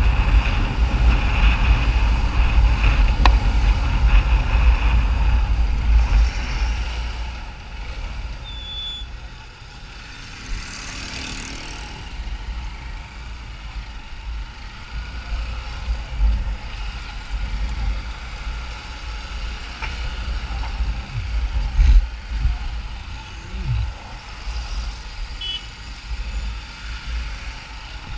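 Riding a motorcycle through street traffic: wind rumble on the microphone over the bike's engine and passing traffic, heavier for the first six seconds and then easing.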